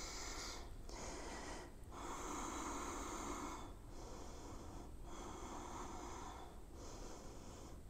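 A person breathing audibly in and out through a close microphone, a slow run of breaths each lasting one to two seconds, while holding a strenuous twisting lunge.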